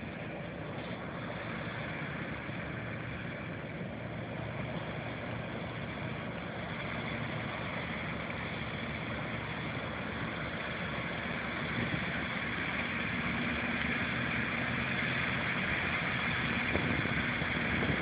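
Combine harvester engine running steadily, a continuous drone with a mechanical whir that grows gradually louder.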